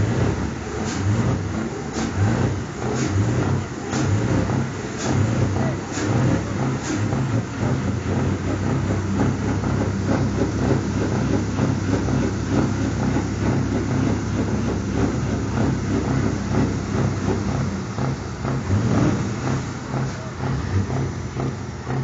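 Scania R560 truck's V8 diesel engine running at low revs as the truck creeps forward, steady throughout, with a sharp tick about once a second during the first several seconds.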